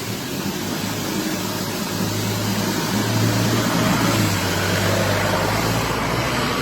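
An engine running steadily with a low hum, getting a little louder about two seconds in.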